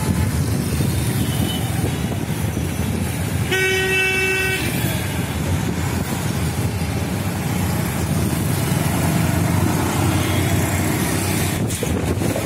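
Steady street noise with a vehicle horn sounding once, a single held tone of about a second, about three and a half seconds in.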